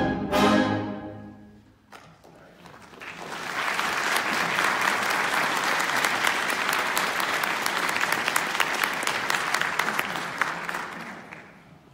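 A concert band's final chord cuts off and rings away in the hall, then a couple of seconds later the audience applauds, steady for several seconds before fading out near the end.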